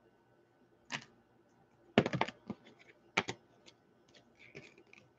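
Scattered light clicks and taps, with a quick run of several about two seconds in and another pair about three seconds in.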